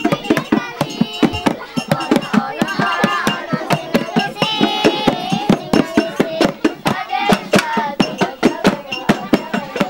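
Music for a Javanese sintren folk performance: voices singing over a steady, fast percussion beat of about four to five strikes a second.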